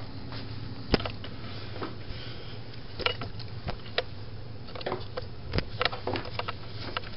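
Handling noise from a small camera being moved and set down: a sharp knock about a second in, then scattered knocks, clicks and rustling, over a steady low hum.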